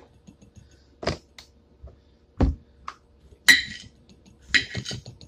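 Small knife peeling a cucumber over a plate: a few sharp knocks and clicks of the blade and cucumber against the plate, then short scraping sounds of peel being cut away about three and a half and four and a half seconds in.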